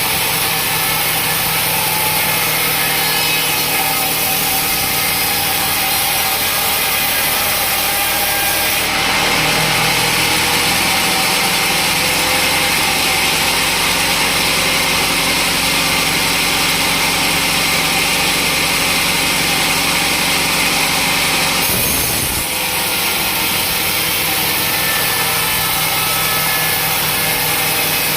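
Sawmill saw running steadily, with the hiss of the blade cutting through a teak log rising about nine seconds in and stopping at about twenty-two seconds, after which the machine runs on.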